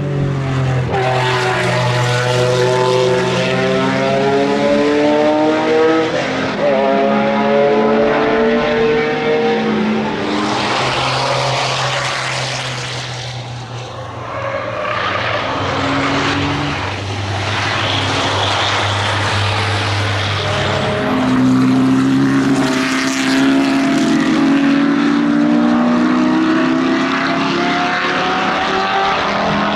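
Racing car engines at full throttle on a circuit, climbing in pitch through the gears with a drop at each upshift. The sound fades about halfway through, then another run builds from about 21 s in.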